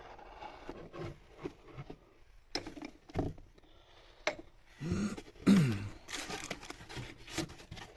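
Scrapes, clicks and light knocks of engine parts being handled, with a brief falling tone about five seconds in.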